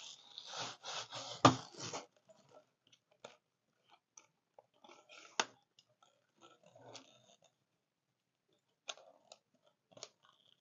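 Plastic bag crinkling as a light-stand tripod is pulled out of it, with a loud knock about a second and a half in. Then scattered clicks and light knocks as the stand is handled and unfolded, with a sharp click about five seconds in.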